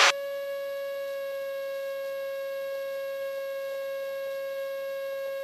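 Steady high-pitched whine of one unchanging pitch with fainter overtones, carried on a light aircraft's cockpit intercom audio line while nobody is talking.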